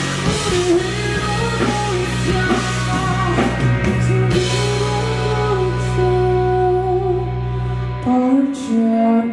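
Rock band playing live, with an electric guitar melody over sustained bass and drums. The low bass drops out about eight seconds in, and a higher melodic line takes over.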